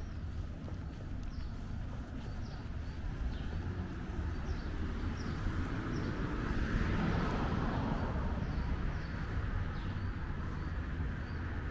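Street ambience: a vehicle passes, swelling to its loudest around the middle, over a steady low traffic rumble. Small birds chirp repeatedly with short, high calls.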